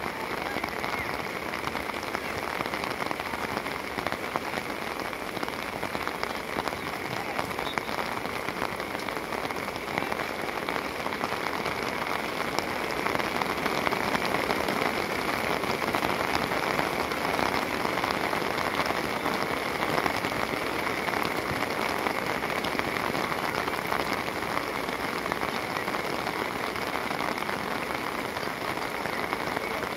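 Steady rain falling, a dense even patter of drops that grows a little heavier around the middle.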